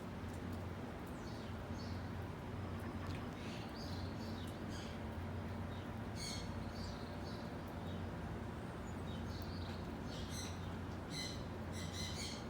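Small birds chirping in short scattered calls, some sweeping down in pitch, over a steady low background rumble.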